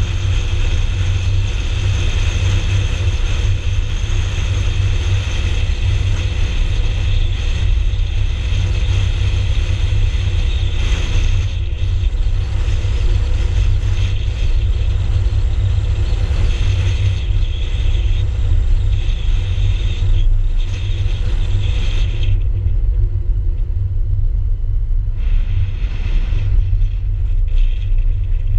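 Car driving along a paved road, picked up by an action camera mounted on the outside of the car: a steady low rumble of road and wind noise, with a thinner hiss above it that fades about three-quarters of the way in.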